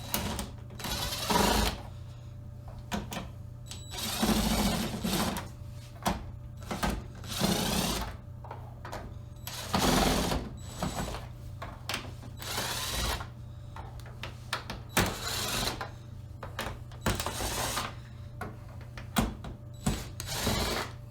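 Power screwdriver running in short bursts, backing screws out of a TV's rear panel one after another, over a steady low hum.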